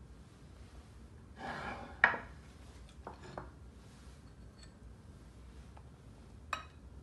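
Dishes being handled: a short scrape about a second and a half in, then a sharp clink, with a lighter knock about three seconds in and another clink near the end.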